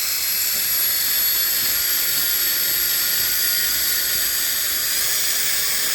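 Electric drill running steadily at high speed, spinning a bit inside an oiled caliper slide-pin bore of a Subaru Impreza rear brake bracket to clean out rust and gunk, with a steady high whine.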